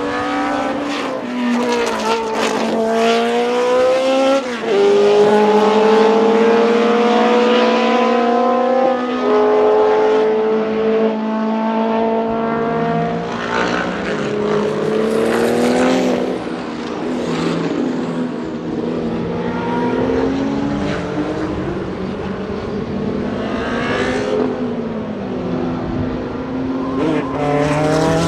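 Cosworth DFV V8 race engine of a 1975 Ligier JS2 accelerating hard through the gears: the pitch climbs and drops back at each upshift, several times, and near the end the car passes by.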